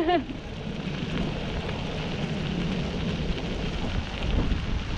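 Steady rushing noise of a dog-pulled kick scooter running fast along a concrete trail: wind on the microphone mixed with the wheels rumbling over the pavement.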